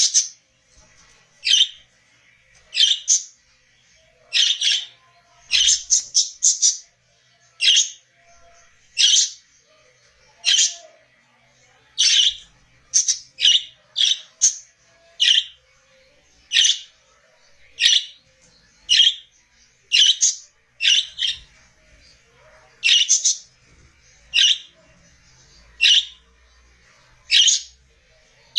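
Budgerigar calls: short, sharp calls repeated roughly once a second, now and then in quick runs of two or three.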